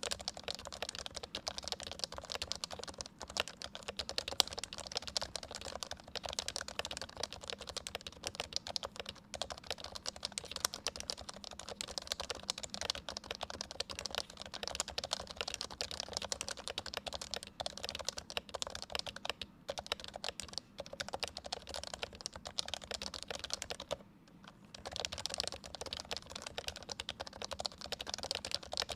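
Continuous typing on an HHKB Pro 3 keyboard with Topre switches: a dense stream of keystrokes, with one short pause about three-quarters of the way through.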